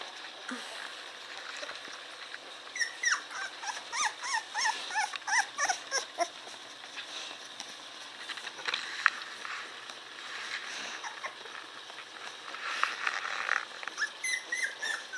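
Young Boerboel puppy whining: a run of short, high squeaky whines for a few seconds, starting about three seconds in, then a few more near the end.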